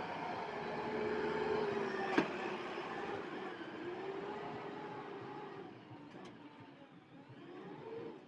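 Heavy machine engine running, its pitch slowly wavering up and down, with one sharp click about two seconds in; the sound fades away near the end.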